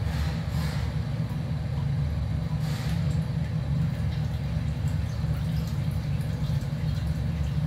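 Steady low rumble of a gas stove burner running under a lidded pan of mung bean stew simmering on the heat.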